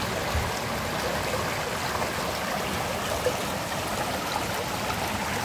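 Steady rush of a shallow river current flowing over stones and tree roots, with one small knock about three seconds in.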